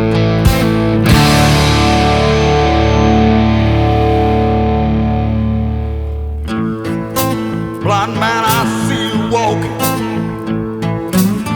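Outro music: rock with electric guitar, a held chord for about six seconds, then faster picked notes with bends.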